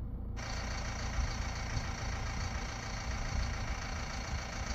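An engine idling steadily with a low rumble, most likely farm machinery.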